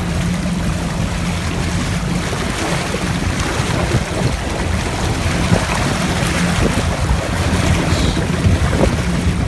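Boat engine running steadily under way, a low hum, with wind buffeting the microphone and the wash of water around the hull.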